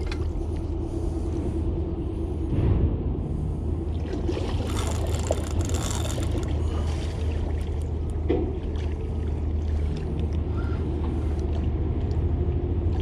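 A boat motor runs with a steady low hum, with water splashing and sloshing over it.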